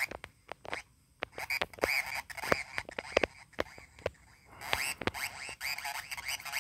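Korg Monotron Delay analog synthesizer played with quick taps on its ribbon keyboard: a scatter of short clicks and chirps, with warbling tones that wobble fast in pitch about a second in and again around five seconds in.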